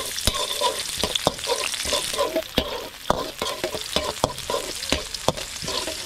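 Sliced shallots and garlic sizzling in hot oil in a metal wok, stirred with a slotted metal spatula that scrapes and clacks against the wok, about two sharp clacks a second.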